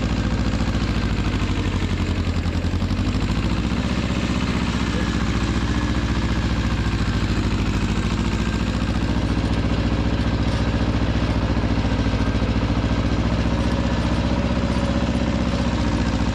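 Pasquali 425 compact tractor's two-cylinder engine running steadily.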